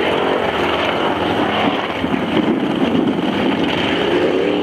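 Off-road pickup truck's engine revving under hard throttle, its pitch rising and falling.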